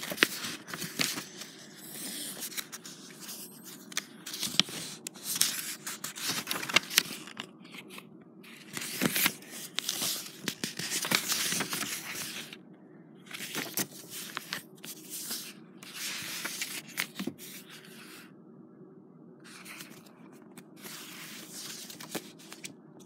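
Paper pages of a book rustling and crinkling as they are handled and turned: a string of short scratchy rustles with a couple of brief pauses.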